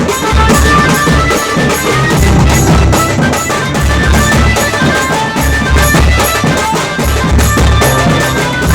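Tasa drum band playing: fast, dense stick strokes on the tasa drums over heavy bass drum beats, with a melody line carried above.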